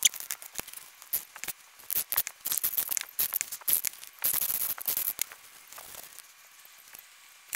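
Hand-work noise at a bench: sharp clicks and taps of a valve-lapping stick and valve against an aluminium cylinder head, with a rustle of a shop towel a little after the middle as the valve face is wiped.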